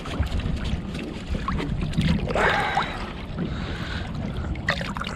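Water sloshing and splashing against the side of a boat as a flathead catfish is held in the lake for release, under steady wind buffeting the microphone, with a brief louder rush of water about two and a half seconds in.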